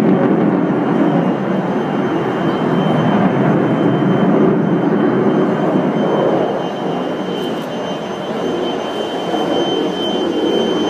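Sukhoi Su-35 fighter's twin jet engines in display flight: a steady jet roar that eases slightly about seven seconds in and then builds again. A thin, steady high whine runs underneath.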